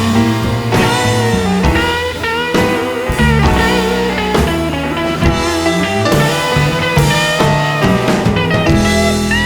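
Background music: rock with electric guitar and drums.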